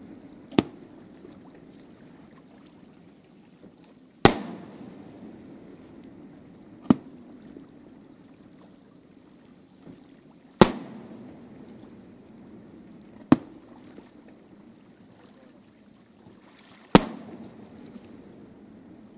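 Aerial fireworks shells going off: six sharp bangs in three pairs, each a quieter crack followed about four seconds later by a louder boom that echoes away. A low steady rumble runs underneath.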